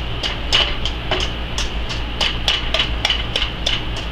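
Metal wire whisk clinking against a stainless steel mixing bowl while mashing boiled eggs: quick, irregular taps, about three a second, each with a short metallic ring.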